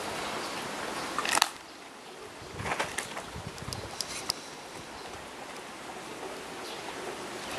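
Outdoor ambience with steady wind noise on the microphone and camera handling noise. A brief loud rustle comes about a second and a half in; after it the sound is quieter, with a few soft clicks and knocks.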